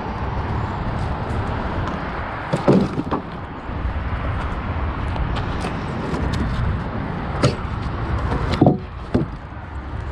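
Pieces of dumped lumber knocking and clattering as they are shifted in a pile, a few sharp knocks with the loudest near the end, over a steady hum of street traffic.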